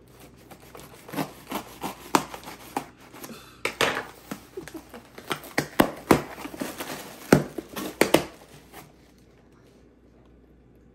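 Packaging being torn and pulled open by hand: a run of sharp crinkles, clicks and rips that stops about nine seconds in.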